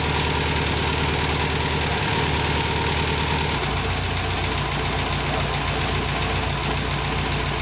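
Freshly installed turbocharged Subaru EJ25 flat-four idling steadily, its idle note shifting lower about three and a half seconds in.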